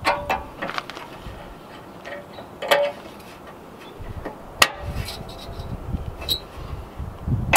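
Scattered clicks and light knocks as a metal line is pressed back into its plastic retaining clips, with one sharp snap a little past halfway.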